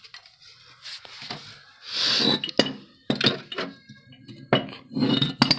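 Irregular metallic clinks and knocks from a steel jack handle and bottle jack being handled and set in place under the vehicle, with a brief rattling burst about two seconds in.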